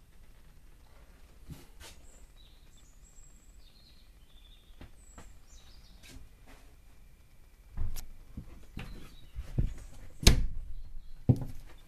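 Birds chirping faintly outside, then, from about two-thirds of the way in, a series of knocks and thumps of footsteps on a static caravan's floor, one thump much louder than the rest.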